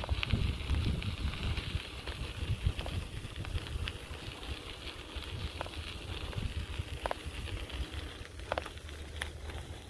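Bicycle tyres rolling over a gravel towpath: a steady crackling crunch over a low rumble, with a few sharp ticks from the stones.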